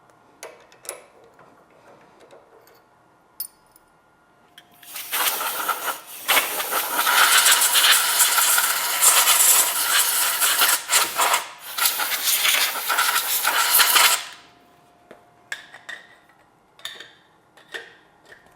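A few small metallic clicks and taps, then a loud steady hiss for about nine seconds with two short breaks, then more clicks and taps.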